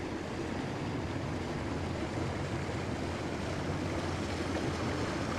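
A motorboat's engine running steadily under way, with a constant rush of wind and water.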